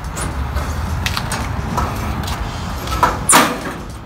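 Wire guard grill of a kerosene heater rattling against the heater's sheet-metal cabinet as it is worked loose and lifted off: a few light metallic clicks, then two louder clanks about three seconds in.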